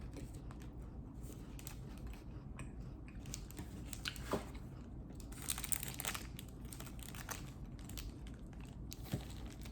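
Biting into and chewing a chocolate-covered cookie bar, with a cluster of louder crunches about five to six seconds in.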